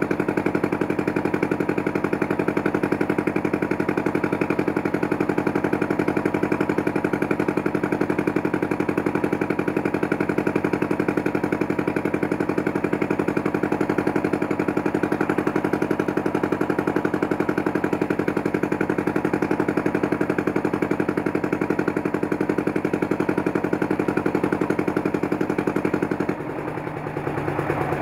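A river boat's engine running steadily with a fast, even pulse. It drops quieter about a second and a half before the end.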